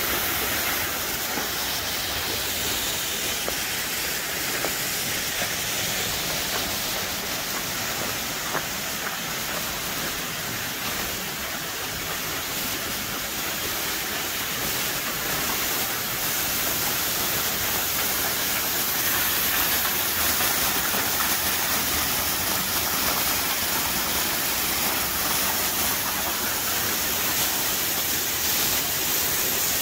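Steady rushing hiss of a tall waterfall plunging over a cliff onto rock, growing a little louder over the second half.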